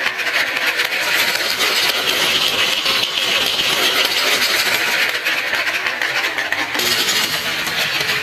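Many marbles rolling and clattering down a wooden marble run, a dense steady rattle of small clicks that shifts to a lower sound about seven seconds in.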